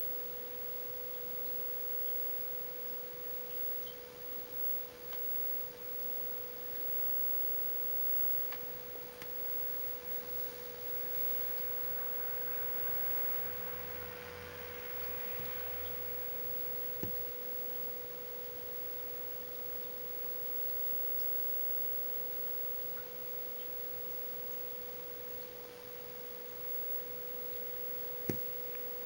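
A steady single-pitched tone that never changes, with a few faint clicks.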